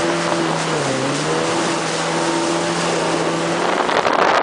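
Jet ski engine running at speed, a steady motor tone over the hiss of water and wind. About a second in, the engine pitch dips briefly and climbs back, as the throttle is eased and reopened. Near the end, a loud rushing noise covers the engine.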